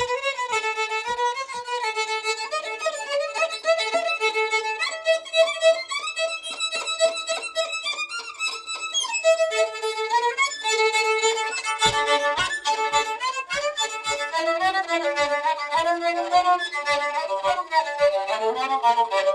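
Fiddle played solo: a slow tune of held bowed notes, at times two strings sounding together. Soft low taps keep time near the start and again from about twelve seconds in.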